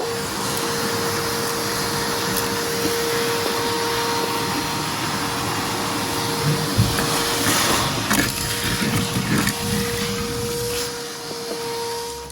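A motor-driven machine running steadily: a loud rushing noise under a constant mid-pitched whine, with scattered knocks and rattles a little past the middle.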